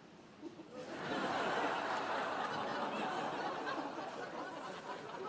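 An audience bursts into laughter about a second in and keeps laughing.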